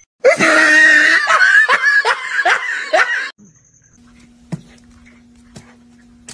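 A person laughing hard in a quick string of bursts for about three seconds. It cuts off suddenly, leaving a faint steady hum with a few light clicks.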